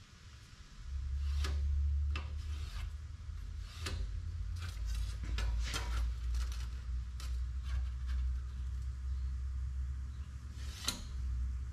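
A steel straightedge sliding and scraping across a sheet-steel plate while lines are marked along it with a pen: a run of short rubs and scrapes, with one sharper scrape near the end. A low steady rumble sits underneath from about a second in.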